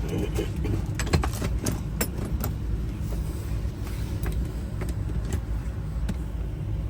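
A bunch of keys jangling and clicking as they are handled, densely in the first couple of seconds and then as a few scattered clicks, over a steady low rumble.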